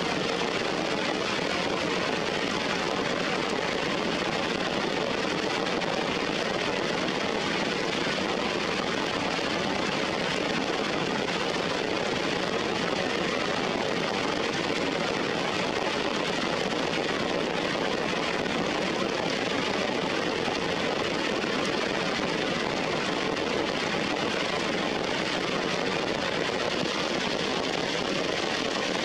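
Steady heavy rain falling on rocks and leaves, an even rushing hiss that does not change.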